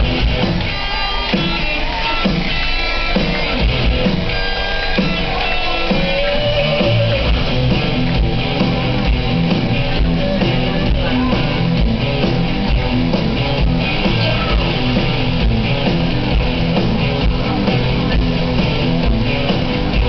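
Guitar-led backing music plays steadily.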